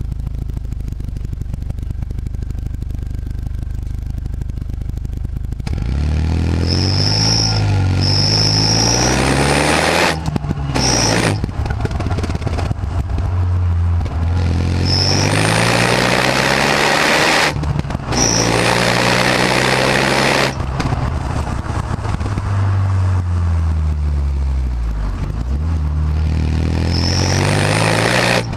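Renault Mégane R26's turbocharged four-cylinder engine through its stock exhaust: running steadily at low revs, then about six seconds in accelerating hard, the pitch climbing repeatedly with short breaks at the gear changes, about ten and eighteen seconds in.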